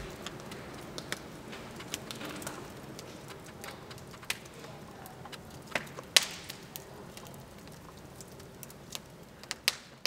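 Faint hiss with scattered, irregular clicks and crackles, slowly fading and cutting off just after the end.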